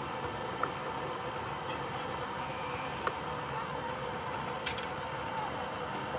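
Steady engine-like hum of street background noise, with a few short, sharp clicks about half a second, three seconds and nearly five seconds in.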